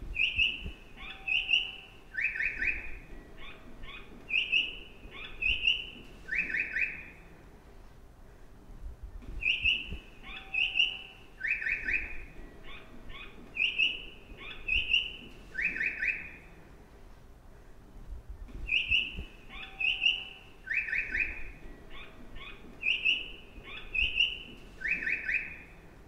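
Recorded birdsong chirps looping: the same phrase of quick chirps and short buzzy notes repeats about every nine seconds, three times. It is the bird-call guidance sound played at train-station stairs to tell vision-impaired travellers where the stairs are.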